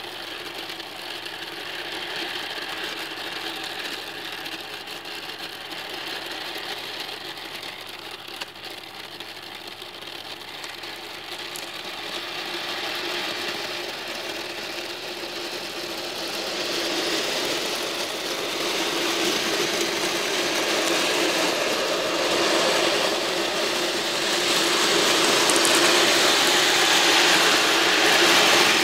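Thousands of small steel balls rattling and clattering against each other and their tray as it is shaken, a dense continuous rattle that grows louder over the second half.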